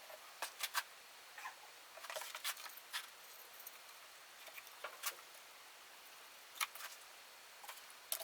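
Faint, scattered light clicks and taps of small wooden pieces being handled and fitted together.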